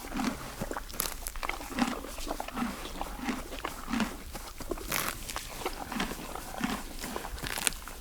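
A horse grazing on green grass: steady rhythmic chewing, about one chew every three-quarters of a second, with a few sharp crunching tears of grass in between.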